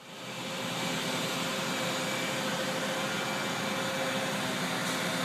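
A steady mechanical hum and hiss with a few constant whining tones, fading in over the first half second and then holding level.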